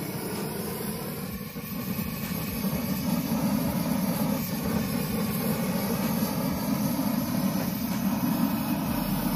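Handheld gas searing torch burning, a steady, rough rushing flame held over the steak. It grows louder about a second and a half in.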